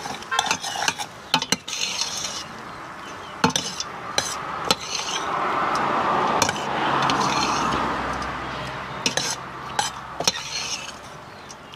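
Metal spoon stirring pasta in a stainless steel pot: scraping and repeated clinks of metal on metal, with a rushing noise that swells and fades in the middle.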